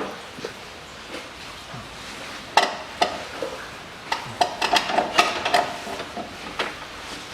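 Metal tools and engine parts clinking and knocking against each other, in scattered sharp clinks with a brief ring. They come in a quick cluster past the middle, during work on a diesel engine being stripped for its cylinder head.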